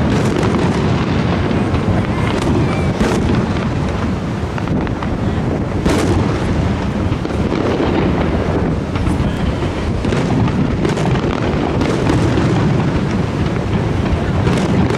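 Aerial firework shells bursting overhead: irregular booms and cracks over steady background noise, with a lull in the middle and more bangs again near the end.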